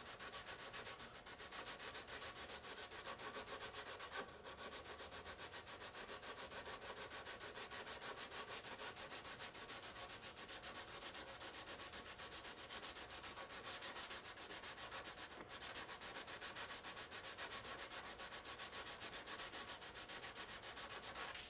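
Hand sanding of a plastic scale model's saucer edge with coarse sandpaper: rapid, steady back-and-forth scratching strokes, working down a hard seam line left by glue.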